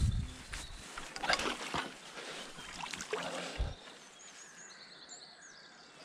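Bumps and rustling handling noise from the fishing gear and camera during the first few seconds, then a small bird chirping faintly in a quick series of short high notes near the end.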